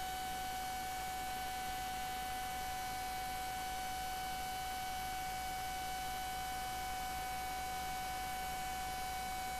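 Steady electrical hum with a constant high whine and an even background hiss, unchanging throughout: noise of the recording and playback system, with no other sound.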